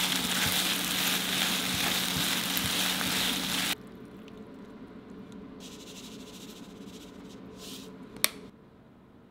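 Sliced beef and green onions sizzling in a hot frying pan over medium-high heat as they are stir-fried with chopsticks, with a few soft knocks against the pan. The sizzle cuts off suddenly about four seconds in, leaving quieter short rustles and a single sharp click near the end.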